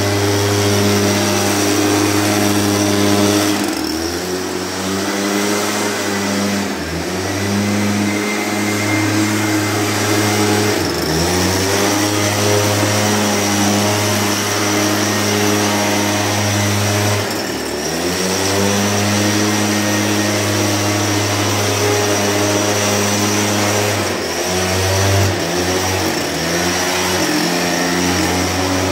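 Backpack motorized mist blower's small petrol engine running at high speed while spraying disinfectant mist. Its revs dip briefly several times and pick back up.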